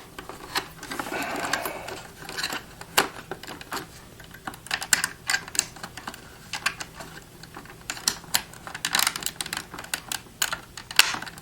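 Plastic parts of a counterfeit detector being handled and pushed back into place: irregular clicks and taps, with a short rustle about a second in and busier clicking near the end.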